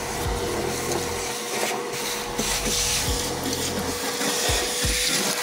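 Frozen, brittle sound-deadening mat being scraped and chipped off a car's steel floor pan with a hand scraper. The scraping is rough and continuous, with a few dull knocks. The mat's glue has been chilled with dry ice and rubbing alcohol so that it lets go of the floor.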